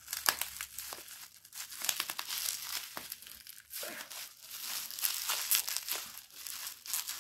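Bubble wrap crinkling, with many sharp crackles, as hands pull and peel it off a small wrapped object.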